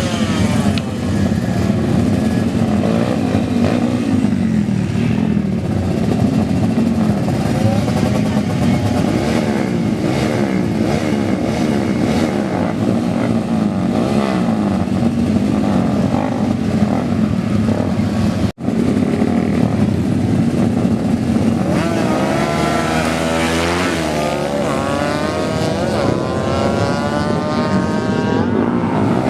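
Modified racing motorcycle engines running hard and revving, the pitch climbing and dropping continuously. The sound cuts out for an instant about eighteen seconds in. In the last third come long revs that sweep up and down.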